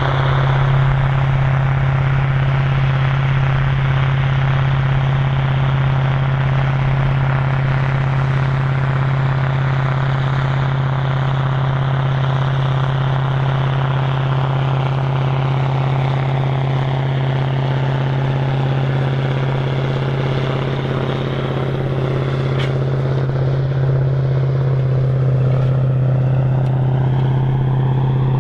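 Big articulated four-wheel-drive tractor's diesel engine running steadily under load, a loud, even drone.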